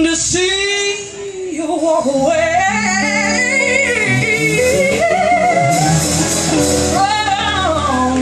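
Live blues band: a female singer holds long, wavering notes with heavy vibrato, climbing higher and falling again, over electric guitars and drums.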